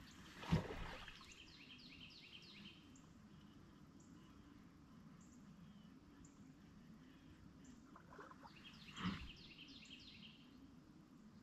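Two casts with a baitcasting rod and reel, about half a second in and about nine seconds in. Each is a sharp thump followed by about two seconds of rapid high chatter as the spool runs out line.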